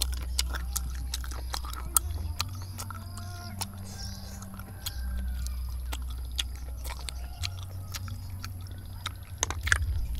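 Cooked snail shells clicking and scraping against a metal pan and each other as the meat is picked out with a toothpick, with chewing. Sharp clicks come every second or so, over a low steady rumble.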